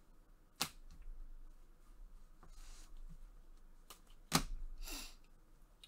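Trading cards and a rigid plastic card holder being handled: two sharp plastic clicks, about half a second in and again past four seconds (the second louder), with short sliding rustles of cards between them.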